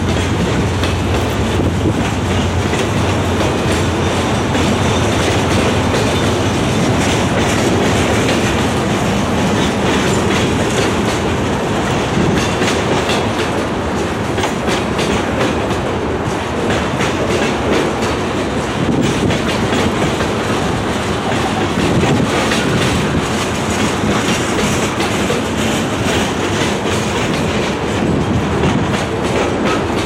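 Freight train cars, mostly covered hoppers, rolling steadily past: a continuous rumble of steel wheels on rail with rapid clicking as the wheels cross rail joints.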